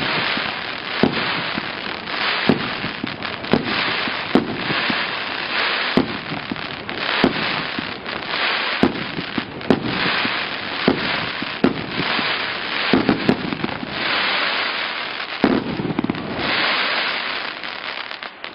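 A 49-shot fireworks cake with 1.5-inch tubes firing: sharp bangs about once a second, each followed by dense crackling. The crackle thins out near the end.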